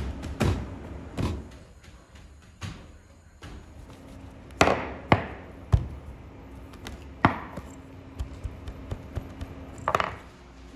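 Irregular sharp knocks and thuds of bread-making tools on dough and the work table as flatbread dough is shaped and pressed with a metal bread stamp. The loudest knocks come in a cluster about five seconds in, with lighter ticks near the end and a faint steady hum underneath.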